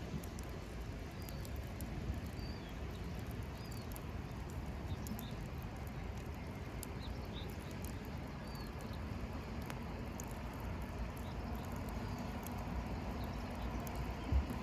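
Campfire crackling, with irregular sharp pops and clicks over a steady low rumble. A few faint short chirps come through, and a single louder thump sounds near the end.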